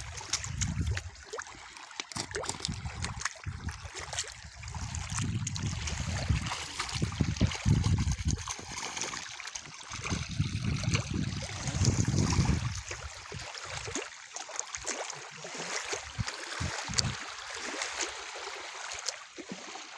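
Water trickling and splashing at the shallow edge of a reservoir, with scattered small knocks. Irregular low rumbling runs through the first two-thirds and fades about thirteen seconds in.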